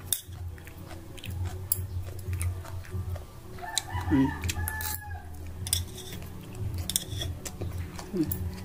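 Eating sounds: utensils clicking against a bowl and chewing, over a steady low hum. About four seconds in comes a louder, drawn-out pitched call lasting about a second.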